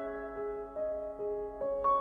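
Gentle keyboard melody: single sustained, ringing notes played one after another, a few each second, over a soft held note.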